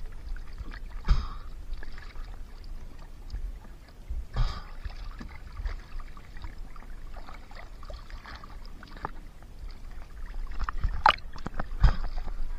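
Water sloshing and splashing against a wooden boat's hull as a large speared fish is lifted out of the sea, with a few knocks on the wooden boat, the sharpest two near the end.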